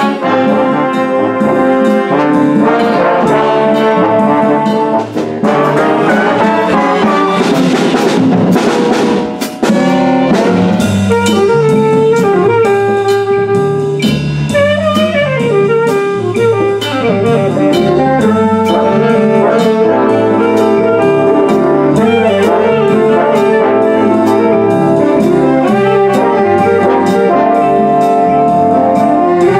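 School band playing a piece together: brass and saxophones sustain chords over evenly recurring percussion strikes, with a swell of hissing noise about eight seconds in.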